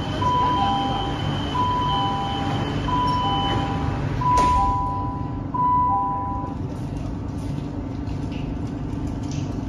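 Metro train door-closing warning on a CRRC Changchun Type-A EMU: a two-tone beep alternating high and low, repeating about five times, with a knock as the sliding doors shut about four seconds in. A steady low hum of the car runs underneath.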